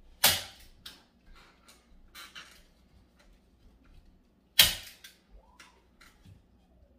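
Hand staple gun firing twice, about four seconds apart, each a sharp snap as a staple is driven through the tufting cloth into the frame, with faint handling clicks in between.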